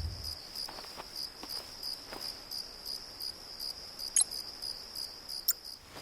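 Crickets chirring steadily in a high, even trill, with two sharp clicks near the end.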